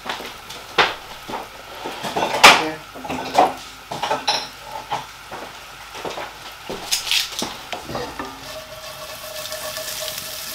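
Garlic and guanciale sizzling in olive oil in a frying pan on a gas hob, with scattered knocks and clatter of the pan and utensils; the sharpest knock comes about two and a half seconds in. The sizzle settles into a steadier hiss over the last few seconds.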